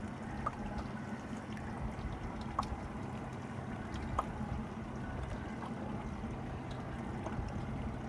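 Boat motor running at a steady speed with water washing, and a few faint ticks.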